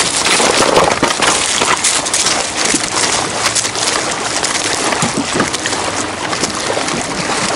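Small waves lapping and splashing against a rocky riverbank, a steady, fairly loud watery wash with small irregular splashes.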